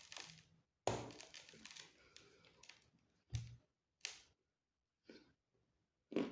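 Crunching of a crisp snack being bitten and chewed: a sharp bite about a second in with crackling that dies away over about two seconds, then three short crunches, a brief pause, and another bite near the end.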